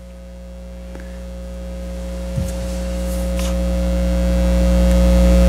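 Electrical mains hum: a steady low hum with a few higher steady tones above it, growing steadily louder.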